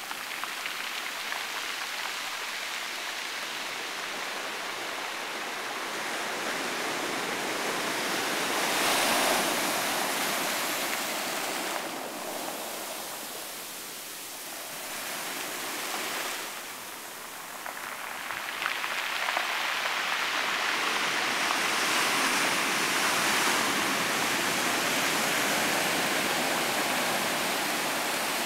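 Ocean surf washing in and foaming over rocks and pebbles: a continuous rushing hiss of water that swells about a third of the way in, falls away twice in the middle, then builds again and stays loud.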